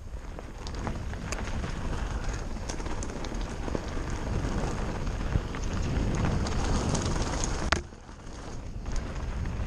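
Mountain bike rolling fast down a dirt and stony forest trail: steady tyre noise with scattered clicks and rattles from stones and the bike, and wind rumbling on the microphone. A sharp knock comes near the end, after which it goes quieter for about a second before picking up again.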